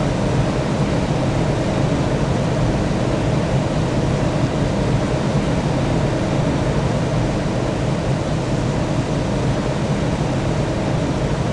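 Airliner noise: a steady, unbroken drone of engine and air noise, heaviest in the low range and unchanging.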